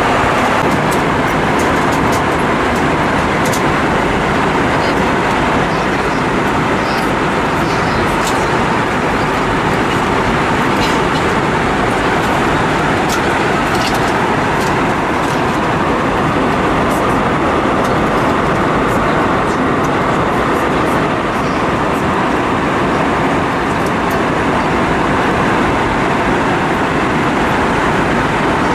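Steady cabin noise inside an Airbus A320 airliner in flight: an even rush of engine and airflow noise, with a few faint clicks.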